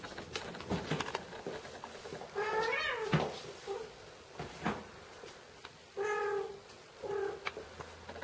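Kitten meowing three times: a mew about two seconds in that rises and falls in pitch, and two shorter mews near six and seven seconds, with light clicks and taps between.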